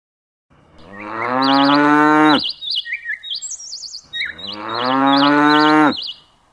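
Cow mooing twice, two long calls of about two seconds each with a pause between, while birds chirp and trill over and between the moos.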